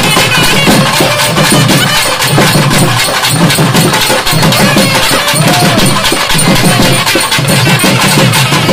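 Thavil barrel drums beaten with sticks in a fast, steady rhythm, several drummers playing together as dance accompaniment.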